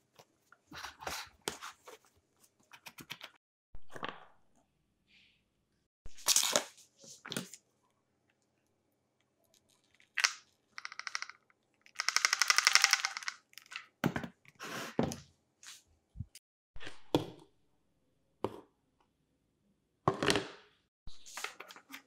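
Hands handling an old two-stroke chainsaw on a wooden workbench: a cloth rubbing over it, with scattered clicks, knocks and scrapes of its plastic and metal parts. About halfway through comes the loudest sound, a fast rattling run of clicks lasting over a second, followed by a few dull thuds.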